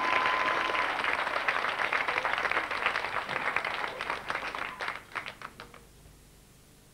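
Audience applauding, the clapping thinning out and dying away about five to six seconds in.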